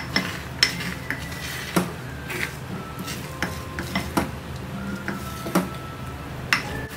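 Wooden spoon stirring and scraping a thick, setting egg mixture in a small pot, knocking against the pot's side now and then, about once or twice a second.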